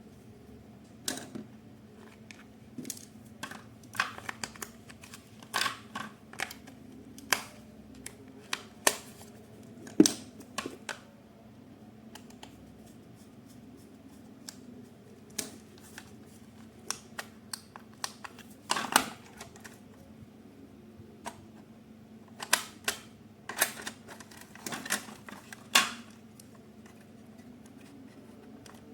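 Irregular sharp clicks and light knocks of small hard objects being handled, with the loudest click about ten seconds in, over a faint steady hum.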